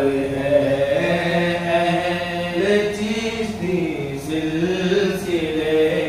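A man's voice singing an Urdu manqabat, a devotional praise poem, drawing out long held notes that glide up and down without clear words.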